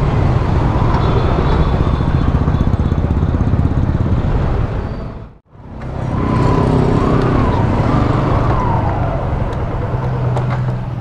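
Motorcycle engine running at low revs in slow traffic, with a sudden break about halfway through. After the break it runs slowly and steadily, settling toward idle near the end.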